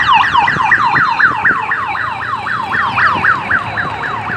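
Electronic siren of a race escort motorcycle yelping: fast, evenly repeated falling sweeps, about four or five a second.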